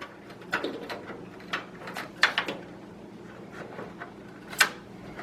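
Cable connectors and parts being handled inside a PC case: a scattering of short clicks and knocks, with one sharper click near the end.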